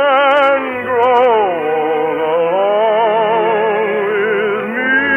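Orchestral music from a 1950s radio musical: a slow melody of long held notes with wide vibrato. It dips about a second and a half in, climbs again, and moves to a new, higher note just before the end.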